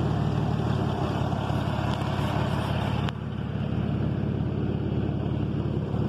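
Car engine idling steadily with the air conditioning on, and one sharp click about halfway through. The AC's low-pressure switch is failing and cutting the compressor out.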